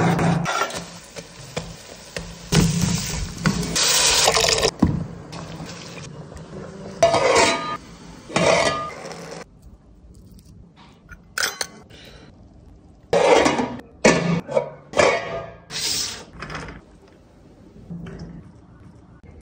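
Metal kitchen utensils clinking and scraping against a metal pan as cooked rice and chicken are handled and scooped, in a series of short separate bursts with quieter gaps between.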